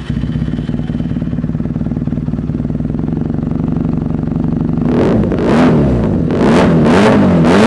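Benelli 302R's parallel-twin engine idling through an Ixil aftermarket exhaust. About five seconds in it is revved with several quick throttle blips, each rising and falling in pitch.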